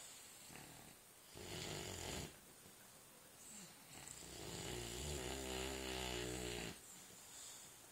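Snoring in sleep: a short snoring breath about a second and a half in, then a longer, louder snore from about four seconds in until nearly seven seconds.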